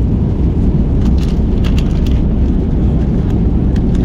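Steady, loud low rumble of airplane cabin noise: engines and airflow running evenly with no change, and faint voices in the background.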